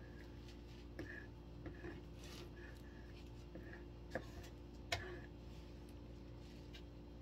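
A mixing stick stirring silicone mold rubber in a plastic measuring cup, with short squeaks as it rubs the cup wall and a few sharp knocks against the cup, the loudest about 4 and 5 seconds in. A steady low hum runs underneath.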